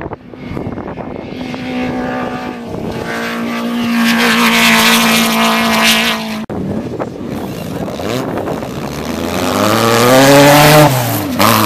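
Off-road race buggy engines running hard at high revs as the cars pass close by. The sound is split by a sudden cut about six and a half seconds in. In the second part the engine pitch climbs and falls as a car revs and passes.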